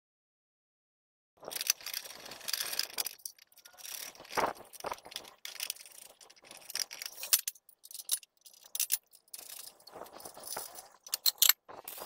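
Steel brackets and metal parts clinking and rattling as they are handled and fitted, in irregular sharp clatters that start about a second and a half in.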